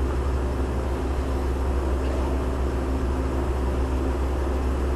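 Steady, unchanging low machine hum with a constant drone, running without any rise or fall.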